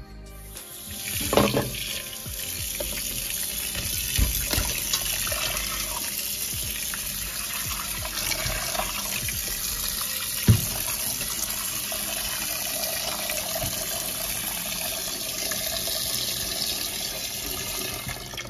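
Water running from a tap into a sink, starting just after the beginning and holding steady until it stops at the end, with a few knocks, the sharpest about ten seconds in.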